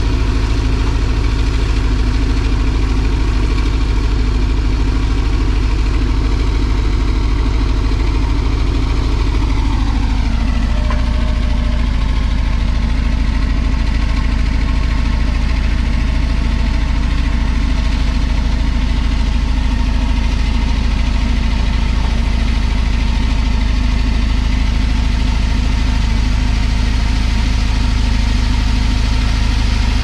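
Caterpillar D11 bulldozer's diesel engine running steadily while the dozer digs and pushes dirt. Its engine note drops about a third of the way in and stays lower.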